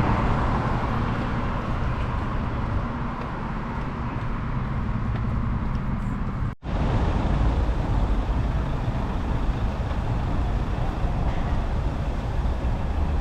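Steady road-traffic noise from vehicles going by, with a brief cut in the sound about six and a half seconds in.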